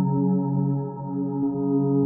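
Moog Matriarch analog synthesizer holding a sustained ambient drone of several layered tones. Its triangle-wave sound runs through a Rossum Morpheus filter modulated by a Mob of Emus module. The level dips briefly about a second in.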